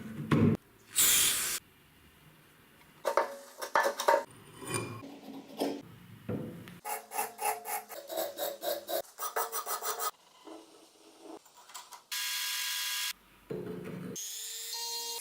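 Hand rubbing, scraping and filing strokes on the parts of an old hand grinder being restored, heard in short cut-together clips. In the middle comes a run of even back-and-forth strokes at about three a second, and near the end a brief steady rushing noise.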